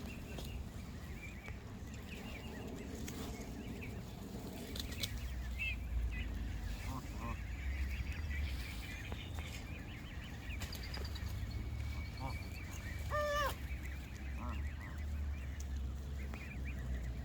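Canada geese giving scattered short honks, the clearest a single honk about thirteen seconds in, over a steady low rumble.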